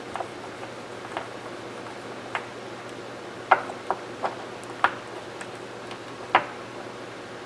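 Irregular sharp clicks and light taps, about eight in all, from small metal rifle parts of a disassembled lever-action rifle being handled and set down.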